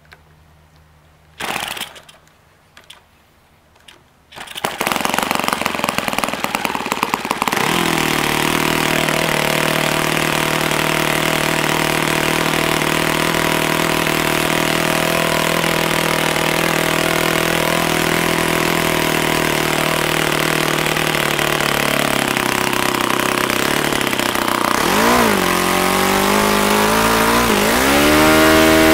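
A YS F-120 four-stroke glow model-aircraft engine swinging a 15x8 propeller on a test stand. After a couple of short bursts it fires about four or five seconds in and runs roughly for a few seconds. It then settles into a steady idle at about 4,800 rpm, and near the end the throttle is opened and the pitch rises as it revs up to about 6,800 rpm.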